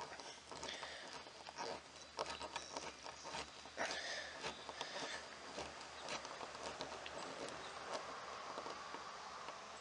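Flat-blade screwdriver turning a slotted wood screw through a hinge plate: faint, irregular scraping and clicking as the screw bites and tightens in a stripped hole plugged with a glued toothpick.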